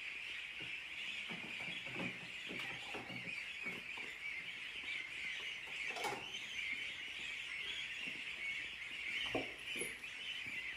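A flock of goslings peeping steadily as a continuous chorus, with a few soft knocks.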